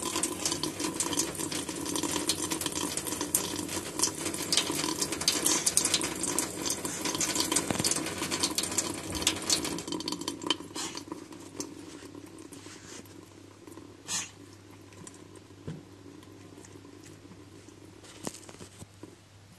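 Tap water running in a thin stream into a stainless steel sink while a cat drinks from it; the running water stops about halfway through. Near the end, a few short sounds from the cat spluttering, as if choking on the water.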